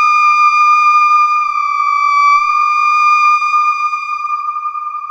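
A single held electronic tone, theremin-like, gliding slowly and slightly down in pitch and growing a little quieter near the end.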